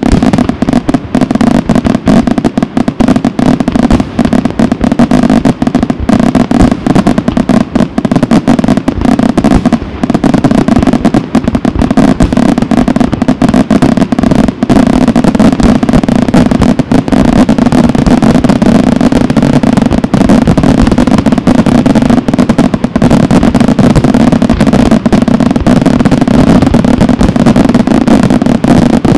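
Aerial firework shells bursting in a dense, continuous barrage, the bangs coming too fast to count. The barrage grows fuller about halfway through.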